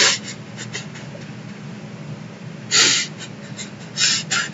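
Stifled laughter over a video call: a few short breathy snorts and gasps, with the loudest bursts about three and four seconds in, over a steady low hum.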